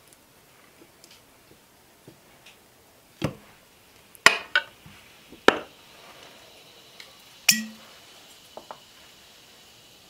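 A fork and knife clinking and knocking against pewter and ceramic plates as a piece of steak is served, with a handful of sharp strikes between about three and eight seconds in. The last one rings briefly.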